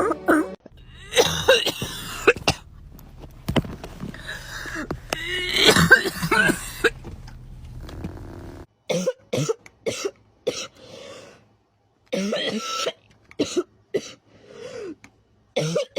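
Several people coughing, one short clip after another: a run of coughs over a low steady hum that cuts off a little past halfway, then a string of short, separate coughs.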